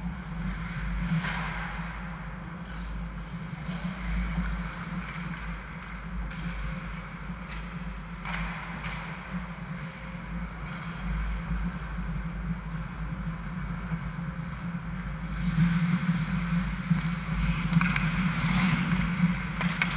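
Ice hockey rink sounds over a steady low hum: occasional sharp knocks of sticks and puck and skate scrapes. The play grows louder and busier about three-quarters of the way in, as players crowd the net.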